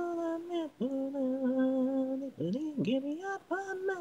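A single voice singing unaccompanied, a cappella, an anime opening song: a long held note, then a lower note held for over a second, then a quick run of sliding notes that climbs to another held note near the end.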